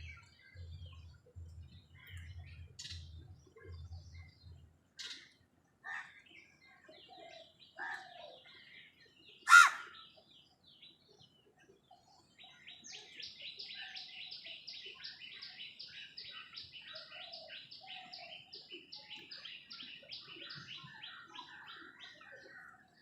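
Wild birds calling. A few short, sharp calls come in the first half, the loudest about ten seconds in, then a long rapid run of high repeated chattering notes for about ten seconds.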